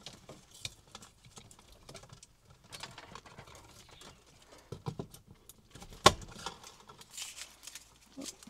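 Romex (NM) cable being stripped and worked into an electrical box with a hand cable stripper: handling rustle and scattered small clicks, with one sharp snap about six seconds in.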